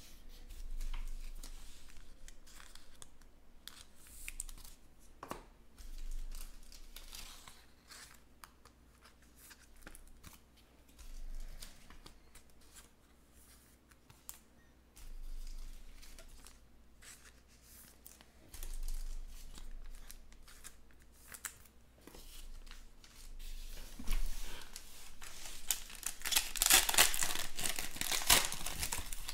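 Soft, scattered rustles of trading cards being handled on a table, then a foil trading-card pack being torn open and crinkled, loudest in the last few seconds.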